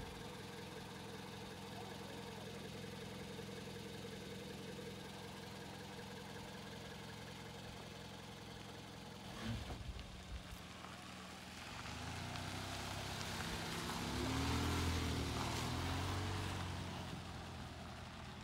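Toyota Corolla sedan's engine idling steadily, with a few sharp knocks about halfway. It then pulls away and drives past on a dirt track, the engine note rising with tyre noise on the dirt, loudest about three-quarters of the way through before fading.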